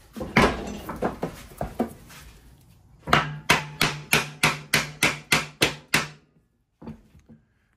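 Hammer tapping on a lawn-mower deck spindle to seat a new bearing: a few uneven knocks, then a quick even run of about fifteen taps, about five a second, that stops about six seconds in.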